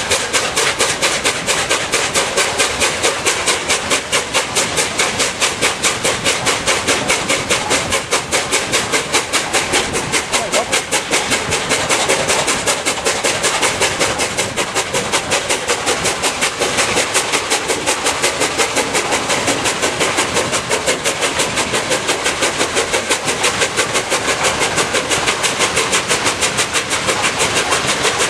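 Three-cylinder A1 Pacific steam locomotive 60163 Tornado pulling its train away, its exhaust beating in a rapid, even rhythm of chuffs.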